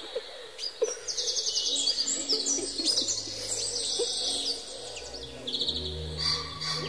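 Small birds chirping and trilling in quick, high runs, several calls overlapping. A low steady hum comes in about halfway.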